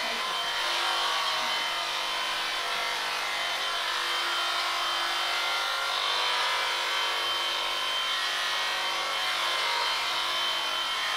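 Electric sheep shears running steadily as they cut through a sheep's thick fleece, a constant motor buzz with no break.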